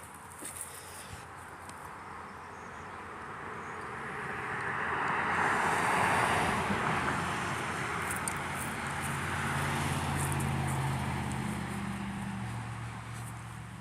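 Road traffic passing: a car's tyre noise swells and fades around the middle, then a vehicle's low engine hum rises and fades away near the end.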